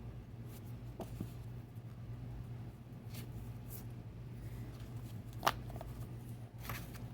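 Glossy printed photobook pages and folders being handled: a few scattered soft rustles and light taps, with one sharper click about five and a half seconds in, over a steady low hum.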